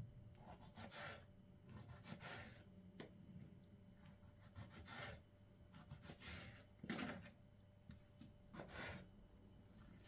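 Knife slicing a tomato on a wooden cutting board: faint scraping cuts a second or two apart, with a sharper knock of the blade on the board about two-thirds of the way through.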